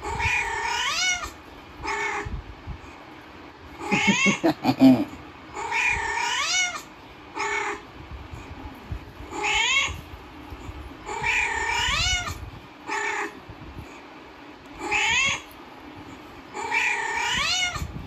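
Recorded cat meows played back on a loop, a long meow, a short one and a medium one repeating about every five and a half seconds. A louder, lower sound breaks in about four seconds in.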